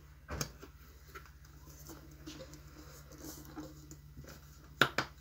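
Kitchen things being handled on a counter: a knock about half a second in, small taps and rustles, then two sharp knocks close together near the end, over a faint steady low hum.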